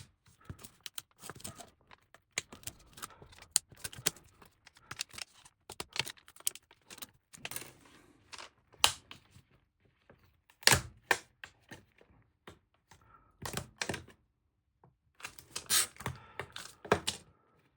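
Irregular clicks, taps and short scrapes of small repair tools prying at a glued-on part inside an iPad Pro, with a few sharper knocks in the second half.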